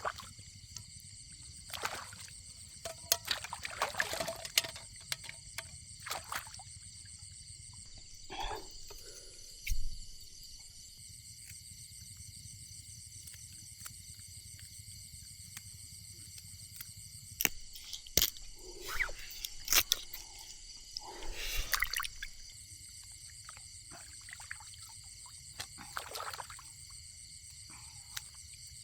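Steady high insect chorus, like crickets, with scattered clicks, knocks and short bursts of handling or water noise.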